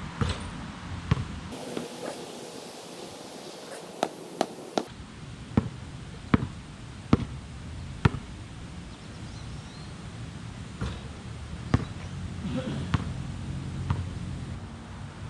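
A basketball being dribbled: a string of sharp bounces, mostly less than a second apart, with a few pauses.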